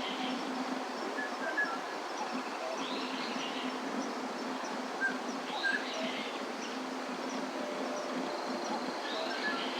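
Outdoor ambience with birds chirping and calling, a curved call repeating about every three seconds, over a steady background hum.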